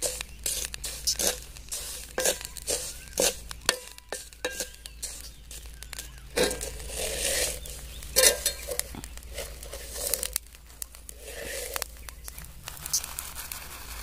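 Hot salt being stirred and scraped around an iron kadai with a wooden spatula, the grains rattling and hissing in irregular scrapes and clicks as triangular fryums fry in it without oil. Later a wire-mesh strainer scrapes through the salt and lifts the pieces out, salt pouring back through the mesh.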